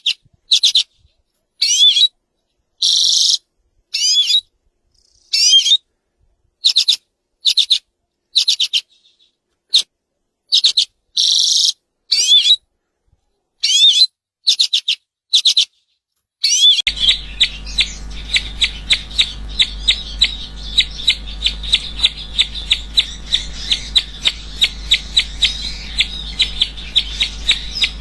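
Songbird singing in short, high phrases of quick sweeping notes with complete silence between them. About seventeen seconds in, a continuous bird track takes over: rapid, evenly repeated high chirps over a steady low hum.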